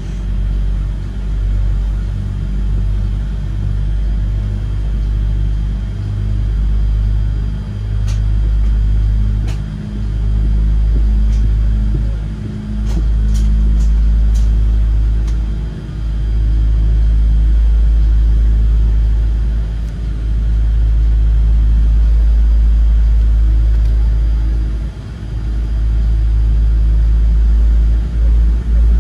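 Low rumble inside a Boeing 787-8's cabin as the airliner taxis, its GE engines at taxi power. The rumble swells and dips every few seconds, with a few light clicks around the middle.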